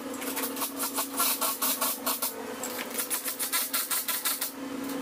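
Impact wrench hammering in a fast rattling run, loosening a wheel's lug nuts for a tire rotation; it stops about four and a half seconds in.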